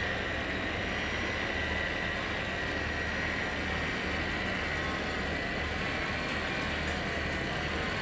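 DCA ADPJ12 12-volt cordless caulking gun's motor running steadily on its second speed setting, driving the plunger to push out a bead of silicone sealant. It gives an even whine over a low hum.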